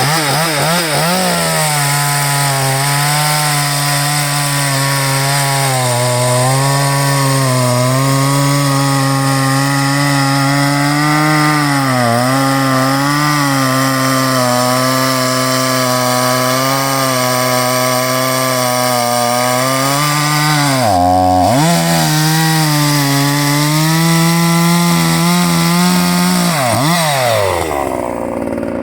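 Brand-new, untuned Salem Master 55cc two-stroke gas chainsaw running at high revs, its engine note held steady with small dips in pitch. About 21 seconds in the revs drop sharply and climb back, and near the end they fall away to idle.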